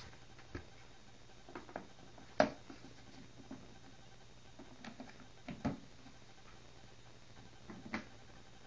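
Handling noise around plastic snake tubs: scattered light knocks and clicks, the sharpest about two and a half seconds in, over a low steady hum.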